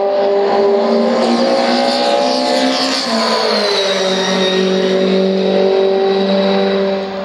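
Open-wheel single-seater race car engine at high revs. Its pitch climbs for about three seconds, drops about a second later, then holds steady.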